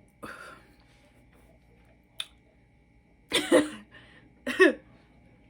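A woman burping after drinking soda: two loud, pitched burps about a second apart, past the halfway point, after a softer breathy sound near the start and a brief click about two seconds in.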